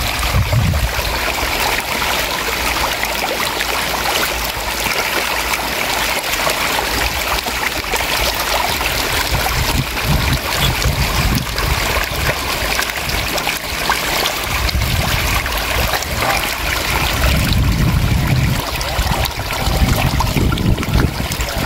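A dense mass of walking catfish (cá trê) thrashing in shallow water, a steady busy splashing and spattering.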